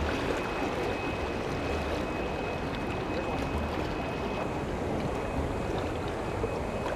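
Steady rush of river water below a low dam, with splashing of people wading and sweeping dip nets through the shallows. A faint steady high tone runs throughout.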